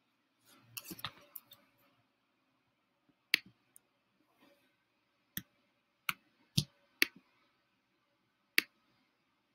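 Sharp, single clicks of a computer being operated by hand, about six of them at uneven intervals, after a soft shuffle near the start.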